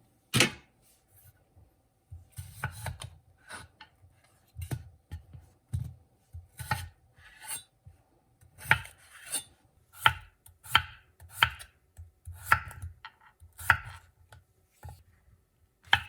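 Kitchen knife chopping on a cutting board: separate single cuts, one sharp stroke about half a second in, then cuts roughly once a second.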